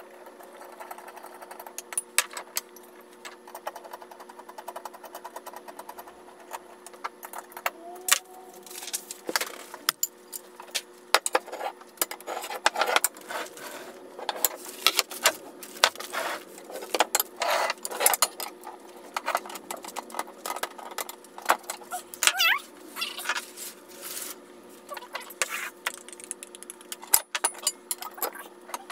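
Steel frame parts of an IKEA Vittsjö laptop table clinking, knocking and rattling irregularly as the legs and crossbars are handled and fitted together by hand, over a faint steady hum.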